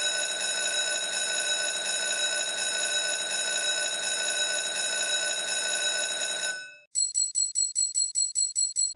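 Book of Ra Deluxe slot machine's win sound: a steady bell-like ringing for about seven seconds, then, after a brief break, a quick run of chimes at about six a second as the winning lines are tallied.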